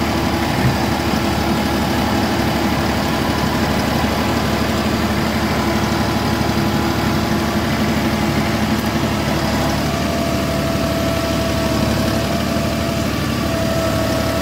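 New Holland compact tractor's diesel engine running steadily while its front loader works. About ten seconds in, a steady whine joins it as the loader hydraulics raise the bucket.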